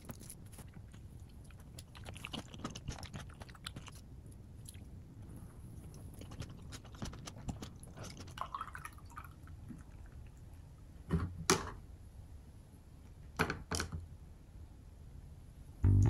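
A spoon mixing a rice bowl in a wooden bowl, with soft scraping and small clicks, and chewing close to the microphone. Two louder knocks come a little past the middle.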